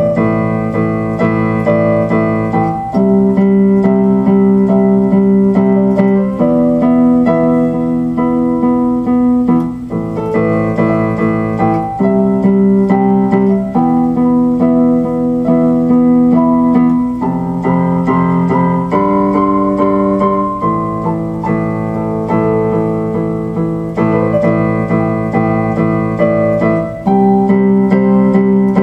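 Electronic keyboard played with a piano voice: slow held chords that change every two to three seconds.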